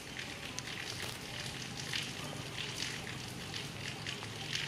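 Outdoor ambience: a faint low hum under irregular soft crackling and rustling noises, roughly once or twice a second.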